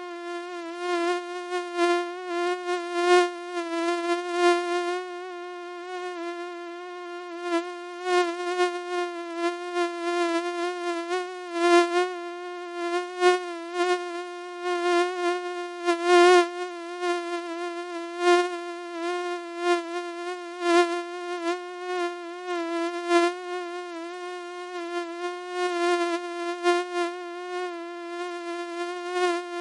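Mosquito whine: a steady, slightly wavering high buzz that swells and fades irregularly.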